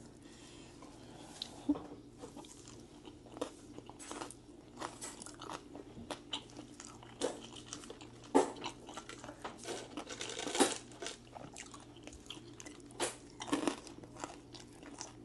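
Close-up chewing and crunching of crispy fried naem (Thai fermented) chicken wing, an irregular run of crackling bites with a few sharp crunches standing out louder.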